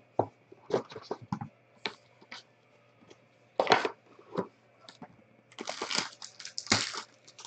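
A cardboard trading-card box handled with scattered taps and knocks, then from about five and a half seconds in the crinkling and tearing of a card pack's plastic wrapper as it is pulled open.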